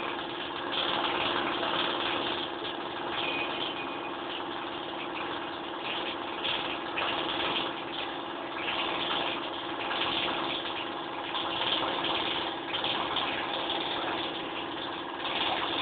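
A machine running steadily: a constant hum with a rushing noise over it that swells and fades.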